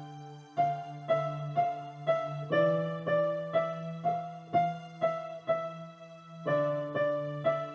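Solo electronic keyboard playing a piano-voiced improvised piece: held low chords under single melody notes struck about twice a second. There is a brief pause just after the start, and the chord changes about two and a half seconds in and again near the end.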